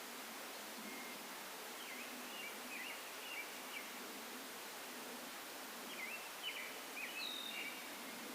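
A songbird singing two short phrases of quick chirps, one a second or two in and another near the end, over a steady background hiss.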